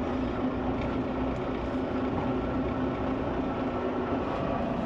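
Volvo semi-truck's diesel engine running steadily at low revs, heard from inside the cab as an even hum with a constant low tone.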